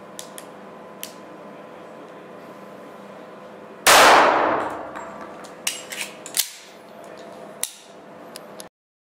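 A single .45 ACP shot from a Korth PRS pistol, loud and sharp with a long echoing decay in a small indoor range, about four seconds in, after a few faint handling clicks. Several metallic clinks and clacks follow over the next few seconds, and the sound cuts off suddenly near the end.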